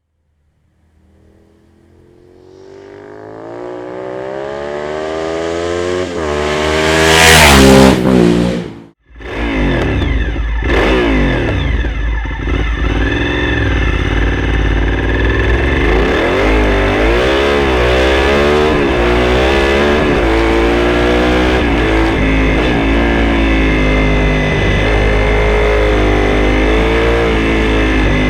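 Honda VTR 1000 SP1's V-twin engine through a Dominator aftermarket exhaust, revving steadily higher for several seconds to a loud peak, then cutting off sharply. It then runs on continuously, with the revs rising and falling again and again as the bike accelerates and shifts, over a low rumble.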